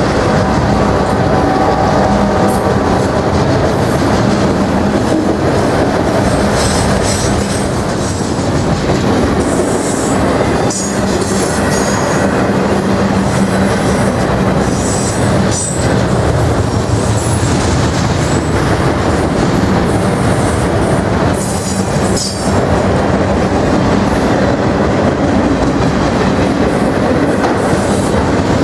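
Autorack freight cars rolling past close by: a steady loud rumble of steel wheels on rail. Short high-pitched wheel squeals come through several times as the train takes the curve.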